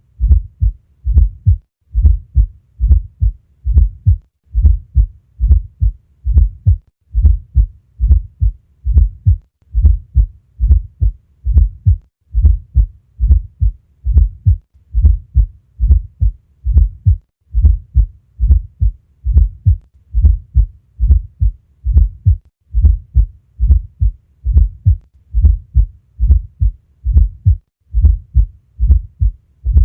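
Recorded human heart sounds: a steady lub-dub heartbeat, low and thudding, a little over one beat a second.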